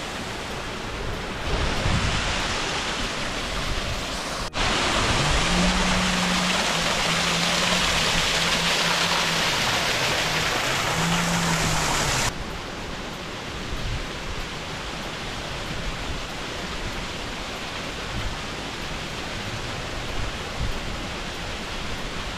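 Steady rush of water from a mountain stream, much louder for about eight seconds from a few seconds in, starting and stopping suddenly.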